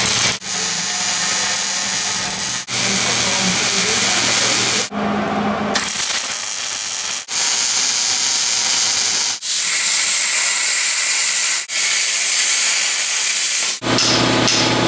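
MIG welder laying beads on steel frame rails: a steady welding hiss in runs of about two seconds, broken by brief stops between beads. In the last second the welding gives way to a steady hum.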